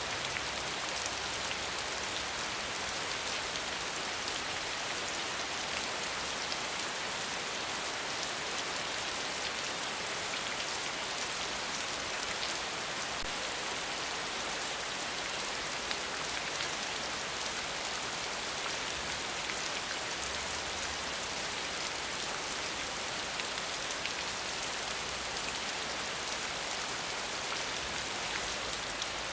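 Steady rain falling on a hard surface: an even, constant hiss dotted with many small, sharp drop ticks.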